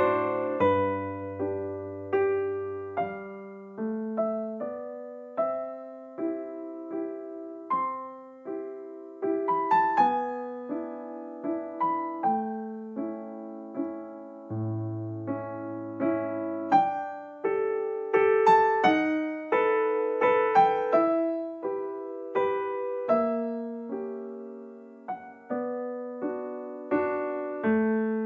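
Background music: solo piano, single notes struck one after another and dying away over held low notes.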